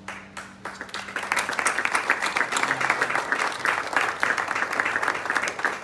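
Audience applauding: a few scattered claps at first, swelling about a second in to steady applause from many hands.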